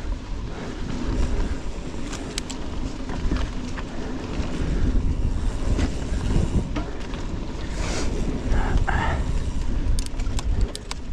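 Canyon Spectral full-suspension mountain bike rolling fast along a dirt forest singletrack: steady tyre and suspension rumble with wind buffeting the microphone, and a few sharp clicks and rattles from the bike, a cluster of them near the end.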